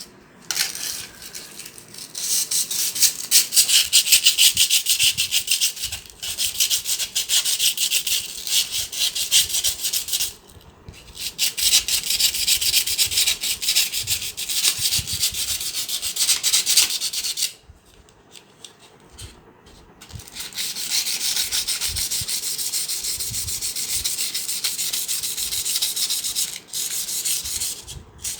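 A seized sewing machine rod being scrubbed fast back and forth with an abrasive, in several runs with short pauses, to clean it so that it slides freely again.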